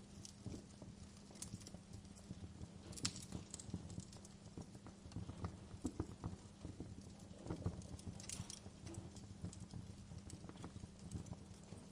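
Wood fire crackling in a fireplace: irregular pops and snaps over a low, steady rumble, with sharper crackles about three seconds in and again around eight seconds.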